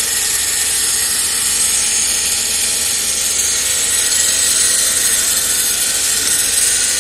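Emotator EV-780 antenna rotator, converted to a DC motor with new gearing, turning under power: a steady, even whir of the motor and gear train.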